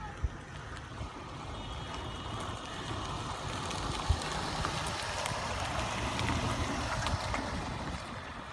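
A 2007 Toyota Corolla GLi 1.3 driving up a concrete lane and past: engine and tyre noise build to a peak about six seconds in, then ease off as the car moves away. Two short sharp thumps, one right at the start and one about four seconds in.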